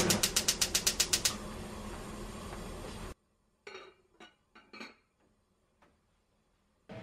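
Gas stove burner's igniter clicking rapidly, about eight clicks a second for a little over a second, as the burner lights under the pot, followed by a steady hiss. After an abrupt drop to near quiet, a few soft knocks.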